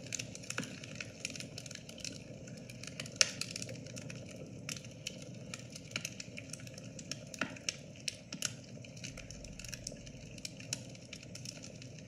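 Fire crackling: irregular pops and snaps over a soft, steady hiss.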